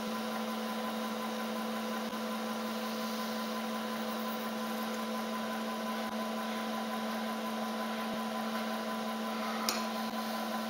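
Milling machine spindle running with a steady hum as a 5 mm carbide end mill is fed slowly down into a sheared bolt to drill it out. One sharp click near the end.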